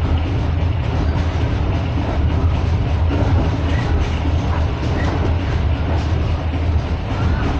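A moving train heard from inside the carriage: a steady low rumble and rushing noise of the running wheels and the train in motion.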